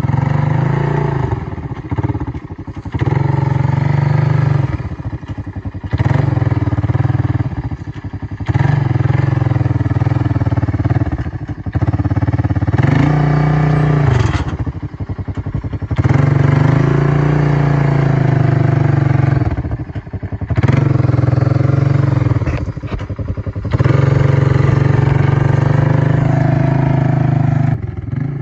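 Honda 300 ATV's air-cooled single-cylinder four-stroke engine revving hard under heavy load, pulling a trailer stacked with cinder blocks through mud. The throttle comes on in repeated surges of one to four seconds, easing off briefly between them, with one rise and fall in pitch about halfway through.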